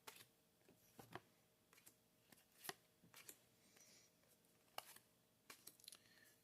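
Trading cards being handled: faint, irregular light clicks and flicks as cards are picked up and set down one after another, with one slightly louder tap a little before the middle.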